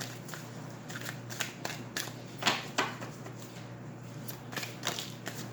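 A deck of tarot cards being shuffled by hand: a run of soft papery clicks and flicks, with two louder snaps about two and a half seconds in.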